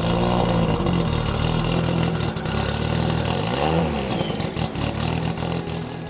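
Mitsubishi Lancer Evolution X's turbocharged four-cylinder engine idling, with one quick rev that rises and falls about three and a half seconds in.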